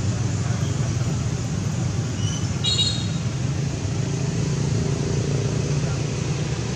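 Steady low rumbling background noise, with a brief high-pitched chirp near the middle.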